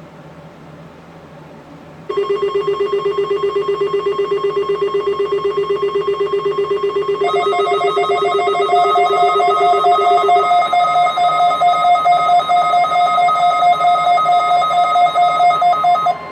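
NOAA Weather Radio 1050 Hz warning alarm tone, sounding together with a weather radio receiver's electronic alarm that has been set off by it. After about two seconds of faint radio hiss the tones start loud: a rapidly warbling low tone at first, then from about seven seconds in a higher, rapidly pulsing two-tone alarm. The receiver alarm cuts off suddenly just before the end.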